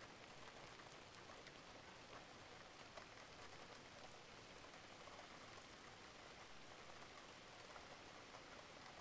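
Faint, steady rain with many small scattered drop ticks.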